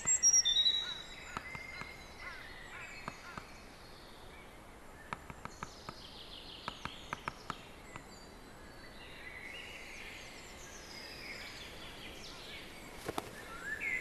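Middle spotted woodpecker pecking at its nest hole in a tree trunk: short groups of sharp taps, a few to a second. Small birds sing and chirp throughout, loudest in the first second.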